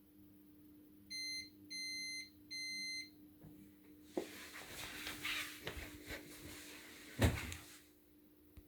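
Washing machine's end-of-cycle signal: three even, high-pitched beeps, each about half a second long, marking that the spin has finished. Clicks and handling noise follow, with one loud knock about seven seconds in.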